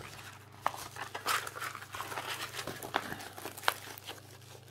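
A stiff diamond-painting canvas with poured glue being picked up and handled: irregular crinkling and rustling with a few sharp crackles.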